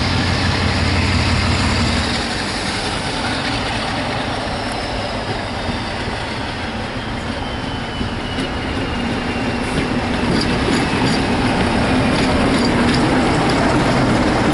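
Class 47 diesel locomotive running past at low speed with its engine droning steadily and a faint falling whine. From about halfway on, wheels click over the rail joints as the coaches roll by.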